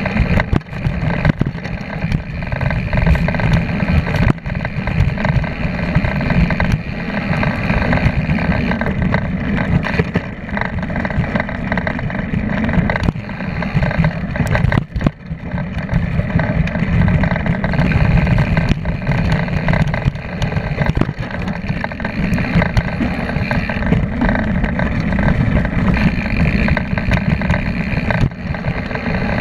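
Mountain bike descending fast on a dirt trail: wind buffeting the camera microphone in a loud, steady rumble, with the tyres rolling over dirt and sharp knocks and rattles as the bike hits bumps.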